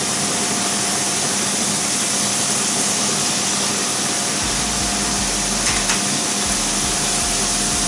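Mushrooms and leek frying in groundnut and sesame oil in a pan: a steady sizzle, with a faint steady hum under it.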